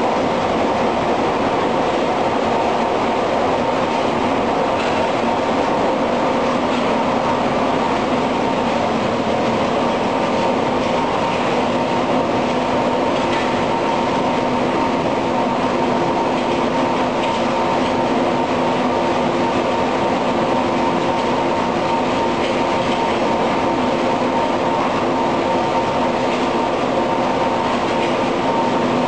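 Polysius vertical roller mill running: loud, steady machinery noise with a hum at several pitches, and a lower hum joining about halfway through.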